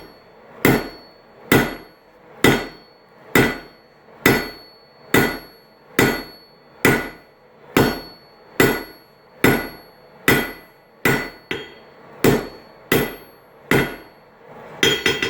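Hand hammer striking red-hot steel on an anvil at a steady pace of just under one blow a second, each blow ringing, as a railroad spike is reduced and drawn out into a shoehorn's handle. A quick flurry of lighter taps comes near the end.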